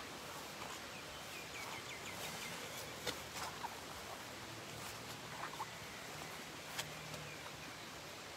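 Steady faint hiss of falling rain. A bird calls a quick run of short chirps a little over a second in, and there are a few sharp clicks and some brief faint calls later.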